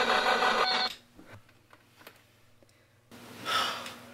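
A loud rushing noise cuts off abruptly about a second in, leaving a quiet room. Near the end, a man in bed takes one short, sharp breath as he wakes.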